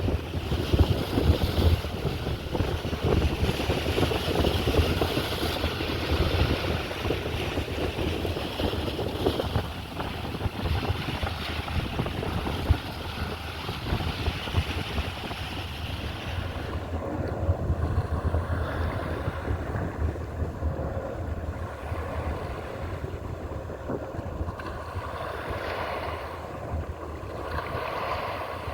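Wind buffeting the microphone, with uneven low rumbling and a steady rush of noise that thins out about halfway through.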